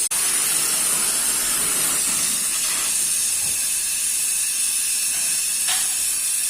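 Oxyacetylene torch flame hissing steadily, cut off for an instant at the very start.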